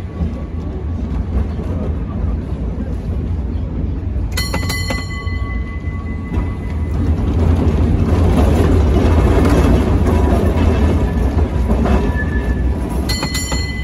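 1896 Hammond Car Co. streetcar running on its rails with a steady low rumble, heard from aboard the open car. Its bell clangs in a quick cluster of strokes about four seconds in and again near the end, and the running noise grows louder in the middle.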